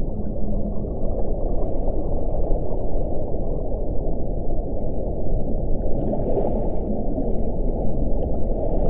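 Underwater recording of whales: a steady low rushing ocean noise, with the tail of a low, steady whale call ending about half a second in and a brief hiss about six seconds in.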